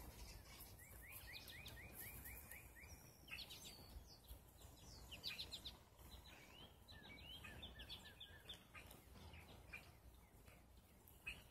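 Faint songbird singing: a run of about nine quick rising chirps, then a busier jumble of chirps until about nine seconds in.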